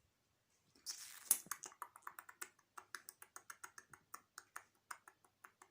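Puppies at play: a brief rustle about a second in, then a quick run of short, sharp clicks, about five a second.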